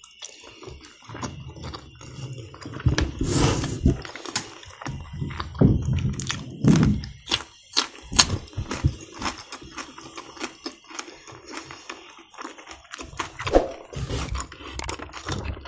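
Close-miked chewing of a soft cheese-filled dumpling with sour cream: wet mouth sounds, lip smacks and small irregular clicks. Louder stretches of chewing come about three and six seconds in.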